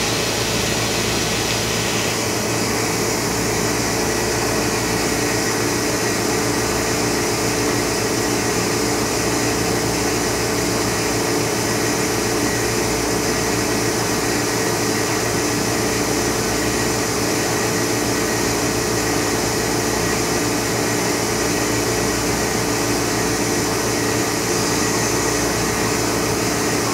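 Steady machine hum and rushing noise from an Oxford Plasmalab 133 ICP380 plasma etch system running, the sound of its vacuum pumps and cooling fans, with several low steady hum tones. A higher hiss eases off about two seconds in.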